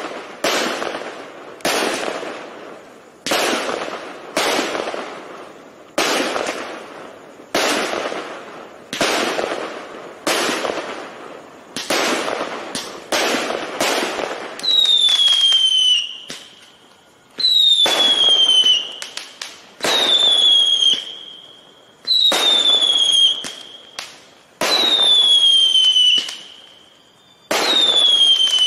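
A 200-shot 0.8-inch fireworks cake firing, its shots going off in quick succession at about two a second, each with a sharp bang that trails off. About halfway through it switches to whistling shots: each is a high whistle falling in pitch over a second or more, one about every two and a half seconds.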